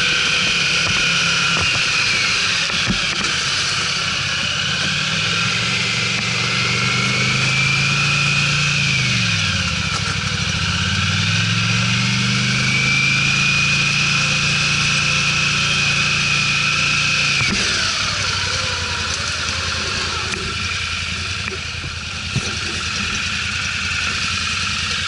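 ATV engine running under load with a high whine over it; about ten seconds in the engine speed drops and then climbs again, and near seventeen seconds it eases off to a lower, steadier running sound.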